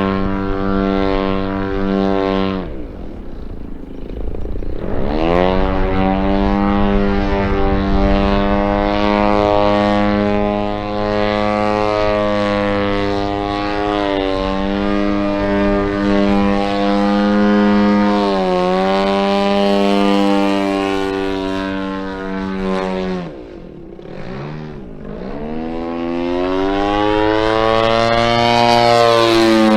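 The 120cc DA two-stroke twin gas engine of a giant-scale Extreme Flight Yak 54 RC plane running at high power in aerobatic flight, its pitch mostly steady with swooping rises and falls. It drops away sharply twice, once near the start and again about three-quarters through, then comes back up to full power.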